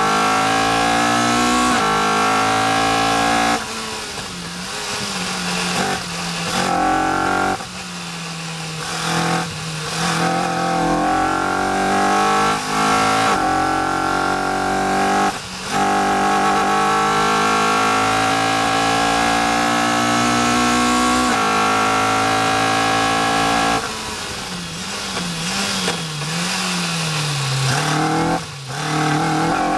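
Caterham R400's four-cylinder engine under hard acceleration, heard from the open cockpit. The revs climb repeatedly and drop sharply at each gear change. Several times the throttle comes off for braking into corners, and near the end the revs rise and fall while the car turns.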